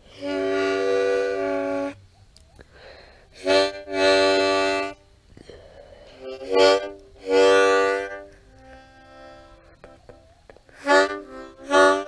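Harmonica drawn (sucked) on its lowest holes to imitate a Wabco AA-2 train horn, sounding a chord of several steady notes. It comes in a series of horn-style blasts, about seven in all: a long blast of about two seconds first, then medium and short ones.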